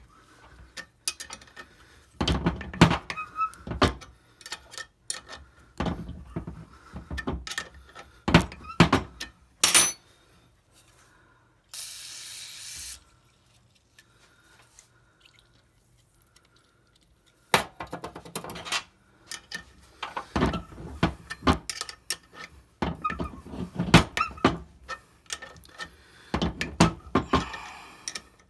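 Metal tool work in a Ford 5.4 Triton spark plug hole as a thread-repair tap is turned with a wrench: irregular clicks and knocks in clusters. There is a short hiss near the middle, then a few quiet seconds.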